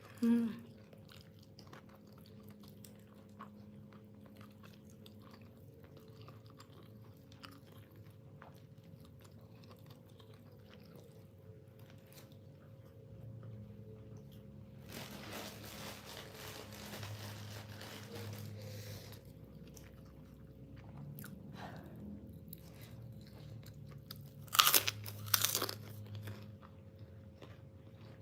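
Close-up mouth sounds of eating chicken: chewing and crunching, with scattered small clicks and a couple of louder, sharp crunches near the end.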